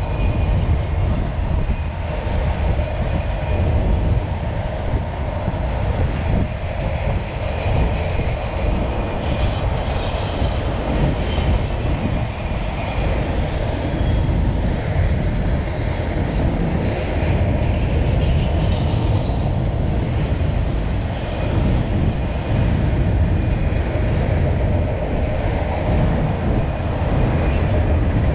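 Freight train of autorack cars rolling past: a steady rumble of steel wheels on the rails with a faint clickety-clack, and thin high tones here and there that are typical of wheels squealing on a curve.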